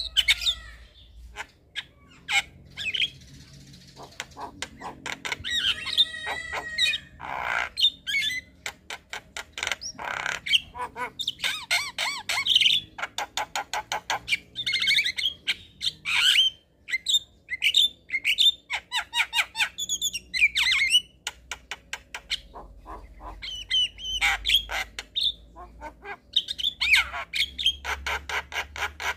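Javan mynas calling: fast runs of sharp clicks mixed with harsh squawks, whistles and warbling trills, in an unbroken, busy stream of song.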